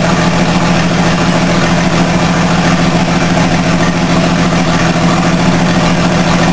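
Hercules gasoline engine of a Kohler electric plant running steadily at constant speed, a loud, even hum with mechanical clatter over it.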